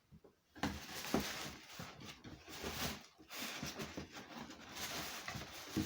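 Plastic packaging rustling and crinkling as it is handled, an irregular crackle that starts about half a second in and runs on with small clicks and crackles.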